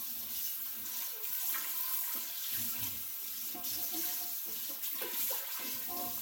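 Kitchen faucet running steadily, its stream splashing on and into a stainless steel pot that is being rinsed in the sink.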